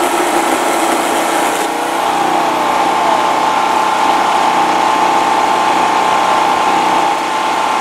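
Portable generator engine running steadily, with a higher steady whine that sets in about two seconds in.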